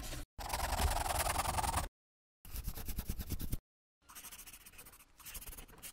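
Drawing sound effect: a pen scratching across a surface in four strokes, each about one to two seconds long, with dead silence between them. The last stroke is quieter.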